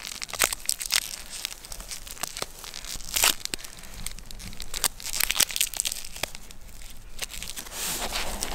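Plastic instant-ramen packet crinkling and crackling as it is twisted shut and bound with an elastic band. The packet is filled with hot water so the noodles cook in the bag. The crackles are loudest about three seconds in and again around five seconds.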